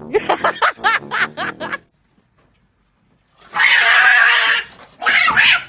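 An animal's quick run of short, pitch-bending calls lasting nearly two seconds, then after a pause two harsh hisses, the first about a second long.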